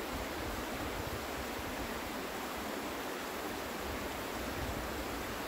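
Steady rushing of a shallow stream flowing over rocks, with a low, uneven rumble underneath.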